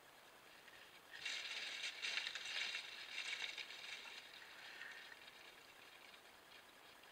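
Black bear shifting and settling in its bed of dry grass, leaves and twigs: a crackling rustle that starts about a second in and fades away a few seconds later, over the faint steady hiss of a trail camera's microphone.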